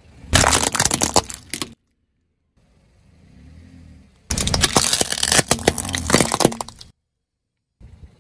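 Car tyre rolling over and crushing brittle objects: two loud spells of dense crackling and snapping, each about one to three seconds long, with a low engine rumble between them and abrupt cuts to dead silence.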